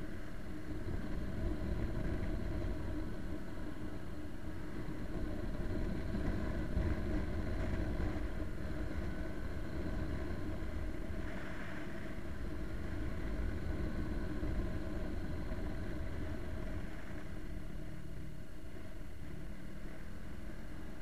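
Motorcycle engine running at a steady cruise, with wind and road rumble, heard from a camera on the bike.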